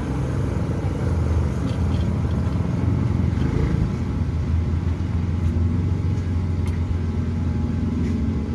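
A steady low rumble, like a motor running, with a few faint light clicks near the end.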